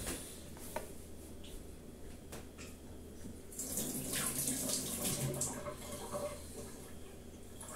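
Kitchen tap running into the sink for about two seconds from roughly the middle, as fruit is rinsed under it. A few small knocks come before it.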